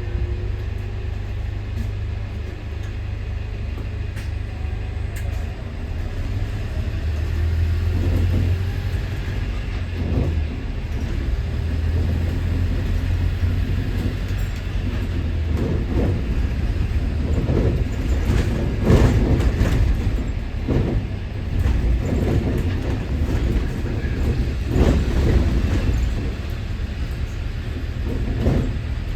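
Double-decker bus heard from inside while riding: a steady low engine and road rumble, with a run of knocks and rattles partway through.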